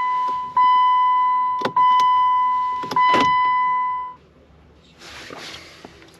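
2007 Jeep Wrangler's dashboard chime sounding a steady electronic tone that restarts about once a second, three more times, and stops about four seconds in. Sharp clicks fall between the tones, and a short rustle follows.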